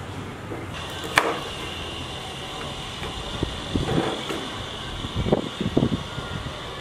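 Knife cutting limes on a bamboo cutting board: short dull knocks of the blade and fruit on the board, a cluster near the middle and a few more near the end. Under them is steady background noise with a high hum that comes in about a second in, followed by one sharp click.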